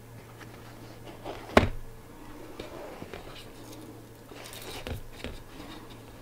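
Pleated paper blind rustling and crinkling as nylon string is threaded by hand through the holes in its pleats. One sharp click comes about a second and a half in, and a few softer clicks come near the end, over a low steady hum.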